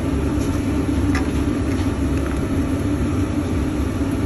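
Steady, unbroken drone of running machinery with a strong low hum, with a few faint handling clicks about a second in.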